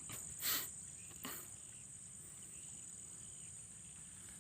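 Steady high-pitched chirring of field insects, with two brief rustling sounds, the louder about half a second in and a softer one just over a second in.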